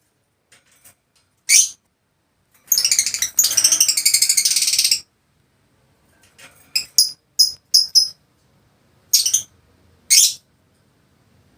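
Lovebird calling: a sharp high-pitched chirp, then about two seconds of rapid chattering, then a quick run of five short chirps and two more single shrill calls near the end.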